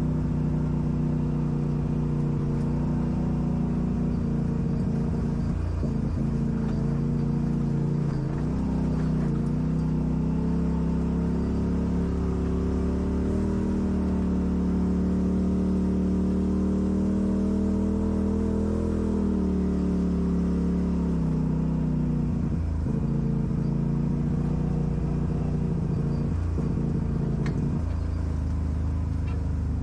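Off-road vehicle engine running under load, its pitch climbing about eight seconds in, held higher for several seconds, then easing back down a little past the middle.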